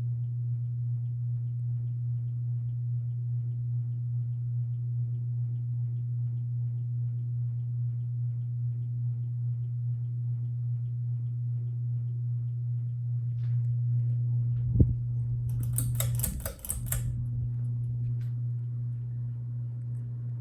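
Westinghouse Richboro SE ceiling fan motor running with a loud, steady hum, which the owner finds irritating. About fifteen seconds in there is a sharp click, then a second or so of rattling clicks, and the hum carries on.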